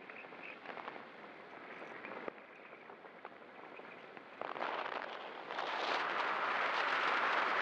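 Wind rushing over an RC glider's onboard camera microphone in flight: a steady rushing noise that gets suddenly louder about four and a half seconds in, and louder again a second later, as the glider descends faster.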